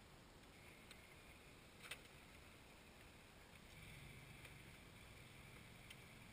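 Near silence: faint outdoor room tone with a few soft clicks, the clearest about two seconds in.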